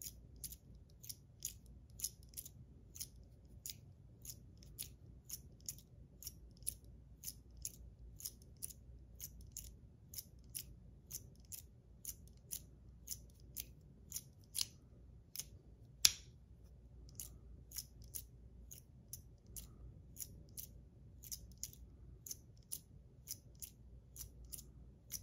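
YEZ Lets Race fidget slider, copper and stainless steel, slid back and forth over and over, clicking at each end of its travel: a steady run of sharp clicks, about two and a half a second, with one much louder click about two-thirds of the way through.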